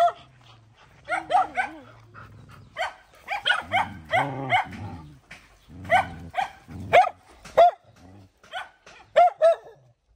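Several dogs barking and yelping in quick clusters of short, high calls, with a low growl underneath in the middle.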